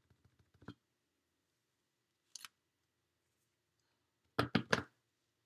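Clear acrylic stamp block tapped against a VersaMark ink pad to ink the stamp: a few faint light taps at the start, a single click about two seconds in, and a quick run of three or four louder plastic knocks near the end.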